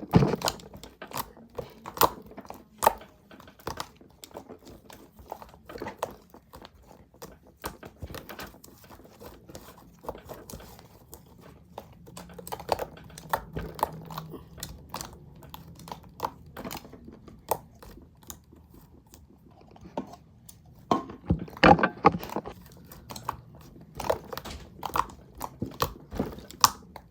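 Slime being squeezed and stretched by hand: irregular sticky clicks, pops and crackles, busiest about halfway through and again about three-quarters of the way in.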